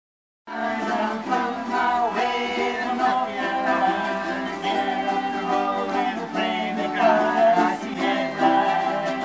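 Several ukuleles strummed together in a group jam, with a violin and voices singing along. It starts about half a second in.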